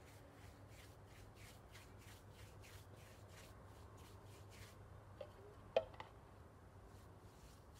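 Faint rhythmic rubbing strokes, about three a second, over a low steady hum, pausing briefly before one sharp click about six seconds in.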